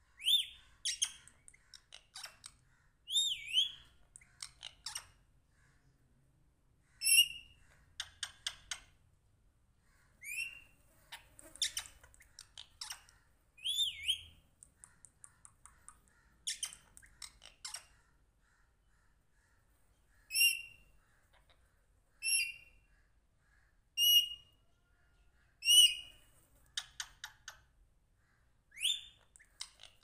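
Pet green parakeet calling: short, sharp whistles, several sliding in pitch, about every two seconds in places, with bursts of rapid clicking chatter in between.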